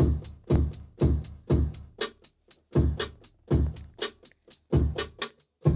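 Electronic drum beat tapped out on a drum-pad controller while a hip-hop beat is being programmed. Deep kick drums hit about every half second under crisp hi-hat ticks about four a second, with a short gap in the kicks partway through.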